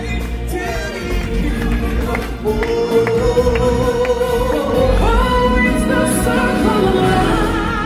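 Live stage-show singing: voices holding long notes over a musical accompaniment with percussion.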